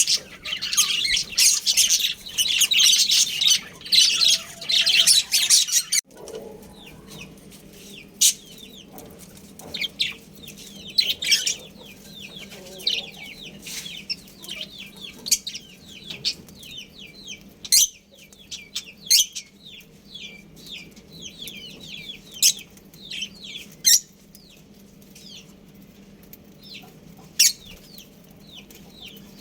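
Budgerigars chirping and chattering: a dense, loud chorus of high chirps for the first six seconds, then an abrupt change to quieter, scattered short chirps and clicks.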